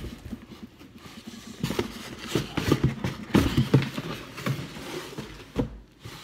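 A cardboard box being opened and handled: a knock at the start, then a run of irregular scrapes and crinkles as its flaps are pulled back and the packing inside is rummaged.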